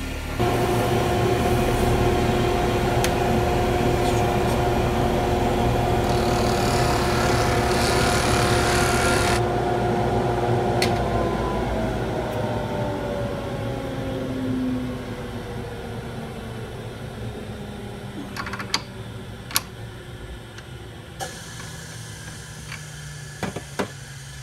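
Mini lathe motor switched on and running steadily with a whine, with the hiss of sandpaper against the spinning wood bangle for a few seconds, then the motor winding down in falling pitch after switch-off. A steady lower hum remains, with a few sharp clicks near the end.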